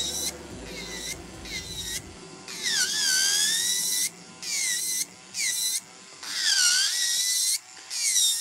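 Electric nail drill (e-file) with a ceramic flame bit, running near its lowest speed and filing gel polish off a press-on nail in a series of short passes. Its high whine dips in pitch as the bit bears on the nail and climbs back as it lifts off.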